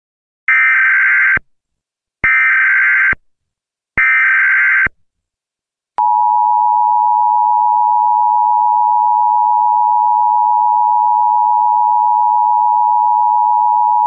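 Emergency Alert System tones: three short, harsh, screeching data bursts (the SAME header), then, about six seconds in, the long steady two-tone attention signal begins.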